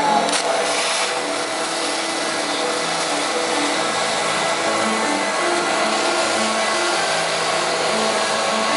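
CNC oxy-fuel cutting torch hissing steadily as it cuts carbon steel plate, with a short click just after the start.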